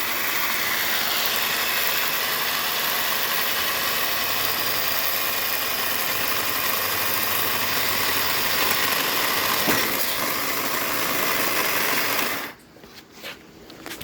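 An engine running steadily, then shut off abruptly near the end, followed by a few light clicks.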